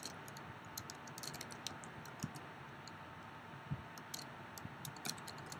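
Quiet keystrokes on a computer keyboard as a terminal command is typed, tapped at an uneven pace with a quick run of several keys a little over a second in and another near the end.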